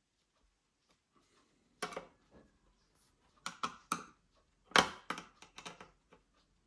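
Small screwdriver and screws clicking and scraping against a metal laptop drive caddy as it is screwed onto a 2.5-inch SSD: scattered sharp clicks and taps, the loudest about five seconds in.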